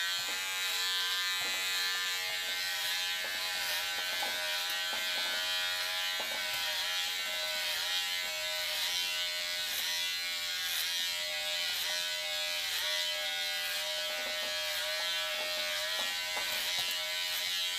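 Unix electric hair clipper with a 12 mm guard running steadily while cutting hair. Its buzz dips slightly in pitch now and then.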